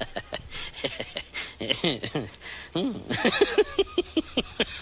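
Monkeys calling: a rapid run of short squeaks and chirps, many sliding up or down in pitch, coming about four a second in the middle.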